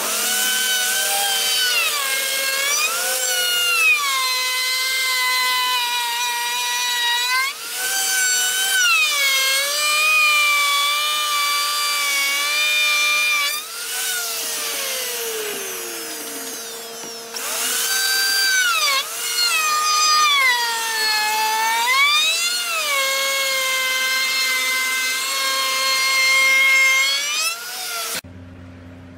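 Electric plunge router cutting along the edge of a hardwood board: the motor's whine sags in pitch as the bit bites into the wood and rises again as the load eases, over and over. About halfway through it winds down and then speeds back up.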